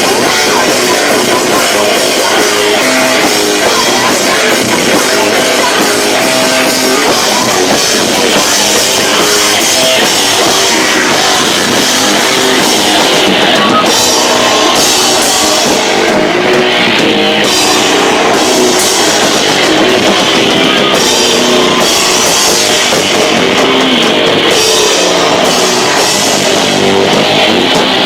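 Live rock band in full, loud play: distorted guitars over a drum kit, with cymbals crashing repeatedly in the second half. The sound is distorted because the camcorder microphone is overloaded by the volume.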